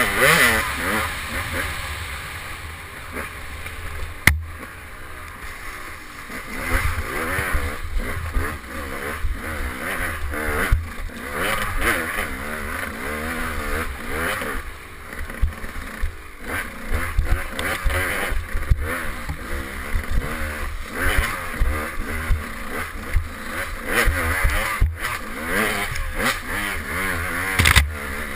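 KTM 200 XC two-stroke dirt bike engine revving up and down over and over as it is ridden hard through tight woods. A few sharp knocks come through from the bike hitting bumps.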